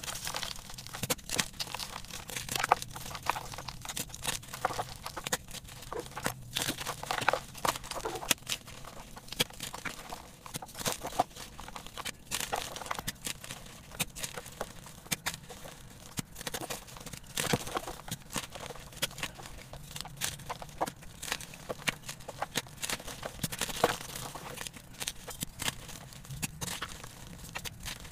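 Blocks of glitter-coated gym chalk crushed and crumbled in the hands: dense, irregular crunching and crackling with sharp snaps as the blocks break apart into powder.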